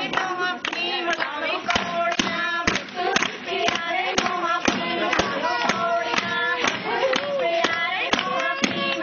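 A group of women singing Punjabi boliyan together, over a steady beat of handclaps about two to three a second.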